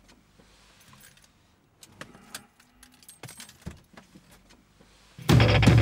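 Faint jingling of keys and a few sharp clicks inside a car. About five seconds in, loud music with a heavy beat starts abruptly.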